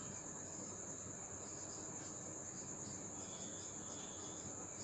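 A steady high-pitched trill runs unbroken throughout, with faint marker strokes on a whiteboard in the middle.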